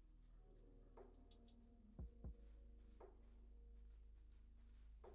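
Faint pencil strokes on paper: many short, quick scratchy flicks, as when sketching stubble, with two soft low knocks about two seconds in.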